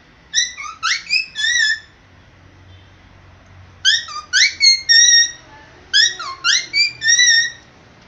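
Cockatiel practising its whistled song, giving a short phrase three times. Each phrase is a quick run of rising notes ending in a held, wavering note.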